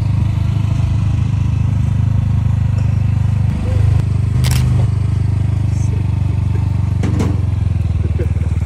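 Motorcycle engine of a Philippine tricycle (motorcycle with sidecar) idling steadily, its pitch rising briefly a little past halfway. Two sharp clicks stand out over it.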